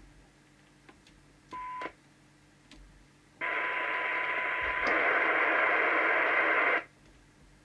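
DNT Contact 40 CB radio's speaker as its squelch is set: it opens briefly with hiss and a steady test tone about a second and a half in. About three seconds later it opens again for about three seconds. The tone drops out halfway and leaves louder receiver hiss, and the sound cuts off abruptly when the squelch closes.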